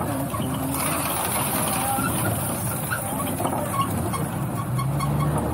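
Safari ride truck driving along the dirt track, its engine and road rumble steady and unbroken.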